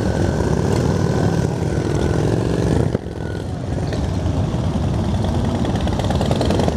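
Motorcycle engines running at low speed with a steady deep rumble. One engine note climbs for a second or so, and the level dips briefly about three seconds in.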